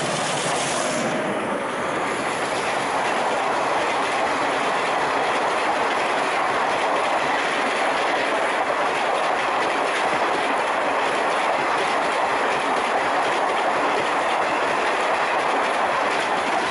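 An Indian Railways Garib Rath Express, hauled by a WDM3A diesel locomotive, passing close at high speed: a steady rush of steel wheels on rail with a rapid run of clicks as the coaches cross the rail joints.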